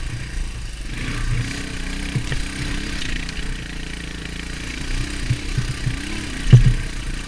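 Beta Alp 200 trail bike's single-cylinder four-stroke engine running at low revs, its pitch rising and falling a little. A few sharp knocks sound over it, the loudest about six and a half seconds in.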